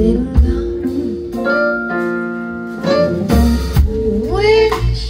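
Live band playing, with electric guitar, keyboards and drums, and a voice singing near the end.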